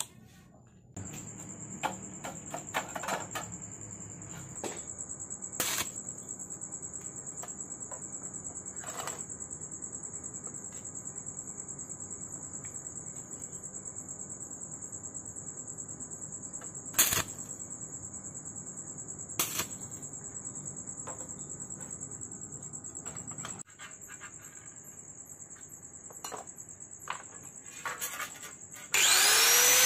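Background music, with a few sharp metallic taps and clinks as sheet-metal pieces are handled and tapped with a hammer on a workbench. Just before the end an angle grinder starts up loudly, its whine rising in pitch as it spins up.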